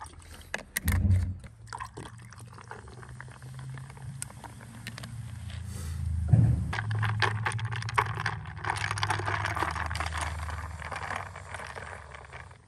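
Whisky poured from a bottle over ice in a glass mug, then a fizzy mixer poured in, crackling and fizzing as the highball foams up. A clunk comes about a second in, and a louder one about six seconds in.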